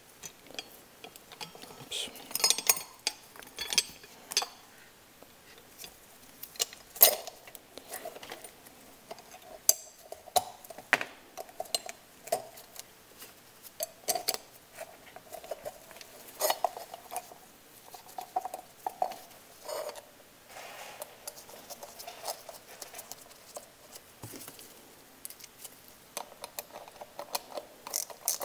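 Metal parts of a wood boiler's damper and stepper-motor assembly clinking and knocking as they are handled and fitted together, with irregular sharp clicks throughout.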